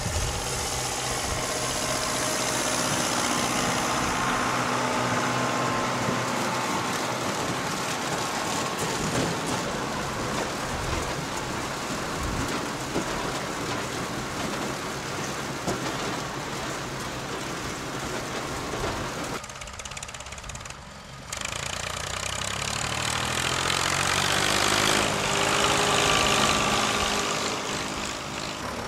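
Tractor engines running with a tractor-drawn sugar beet harvester working, a steady mechanical sound that dips briefly about two-thirds through and grows louder again near the end.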